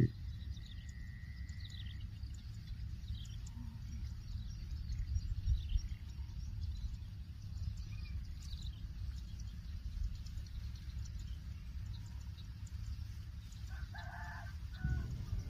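Faint, short bird chirps and calls over a steady low rumble, with one longer, fuller call about fourteen seconds in.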